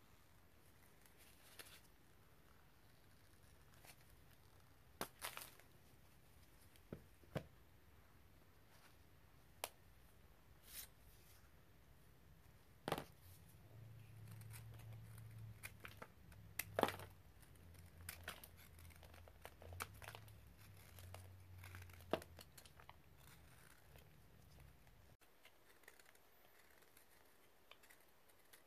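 Soft white powdery block crumbled in gloved hands, then cut and scraped with a small knife: quiet, scattered crunches and scrapes with a few sharp clicks.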